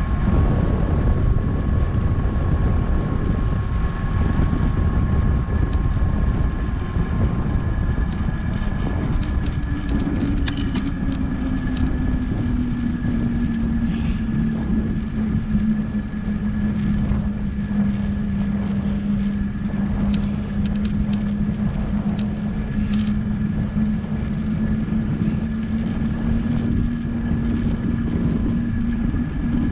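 Wind rushing over an action camera's microphone on a bicycle coasting downhill, with road noise underneath. About ten seconds in, a steady hum joins, falls slightly in pitch and then holds, and a few light clicks come through.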